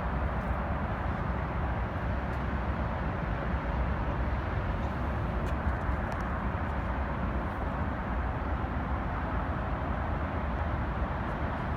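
Steady rumble and hiss of a running vehicle, with no change in pace throughout.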